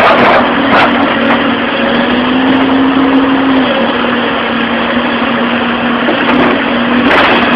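A construction machine's engine running steadily, with a held whine that dips slightly in pitch about three and a half seconds in.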